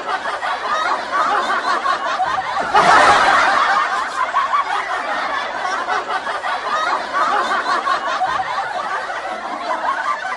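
Laughter: several voices giggling and snickering, loudest about three seconds in.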